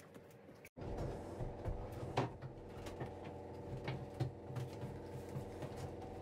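A steady machine hum with light knocks and clicks from gloved hands handling mixing cups and tools over a boat's engine bed, the sharpest knock about two seconds in.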